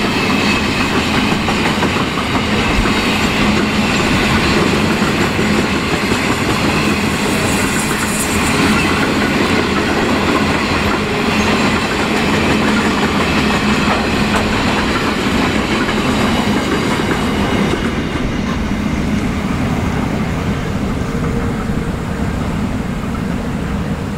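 Grain hopper wagons of an empty grain train rolling past on steel rails, a steady rumble with the clickety-clack of wheels over the rail joints. The sound weakens about three-quarters of the way through as the last wagon goes by and the train draws away.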